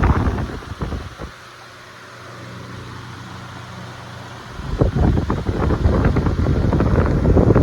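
Arge 50 cm 200 W oscillating wall fan running: its air stream buffets the microphone, falls away to a steady low motor hum for about three seconds as the head swings aside, then the gusting returns about five seconds in.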